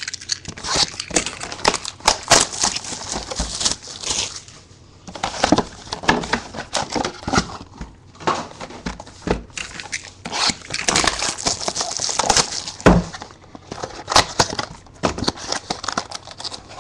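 Plastic wrapping crinkling and tearing, with sealed cardboard card boxes clicking and sliding against each other as they are handled and unpacked. The crackles come in irregular clusters with short lulls.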